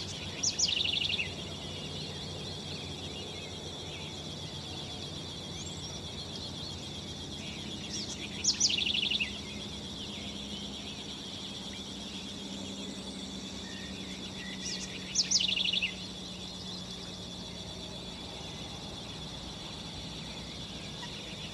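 Snail kite calling three times, about seven seconds apart. Each call is a couple of sharp down-slurred notes followed by a short dry rattle, over a steady high-pitched background drone.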